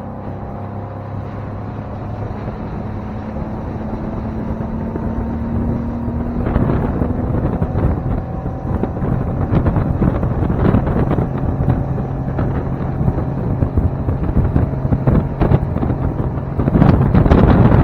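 Outboard motor of a small aluminium V-hull fishing boat running and picking up speed as the boat gets under way. Wind buffeting the microphone grows from about six seconds in and gets louder again near the end.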